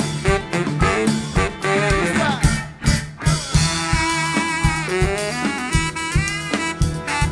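Live band playing an instrumental funk groove: a baritone saxophone melody with bent notes over a steady drum kit beat. The band drops out briefly just before the middle, then the horn line comes back in.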